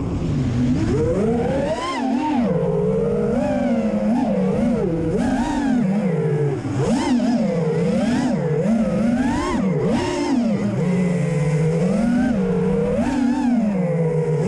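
Brushless motors and propellers of a 5-inch Realacc Real5 FPV racing quadcopter whining in flight. The pitch rises and falls continually as the throttle changes.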